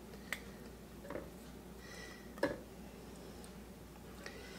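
A few light taps and clicks of a silicone spatula against a glass dish and a metal bread-machine pan as an egg is scraped in, the third tap the loudest, over quiet room tone.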